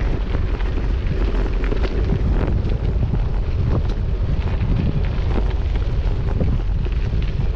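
Wind buffeting the microphone of a moving bicycle rider: a steady, loud low rumble with scattered light ticks and rattles over it.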